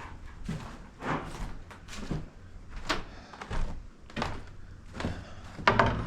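Footsteps on an old wooden floor, a knock every half second to second, then a louder clatter near the end as an old door is pushed.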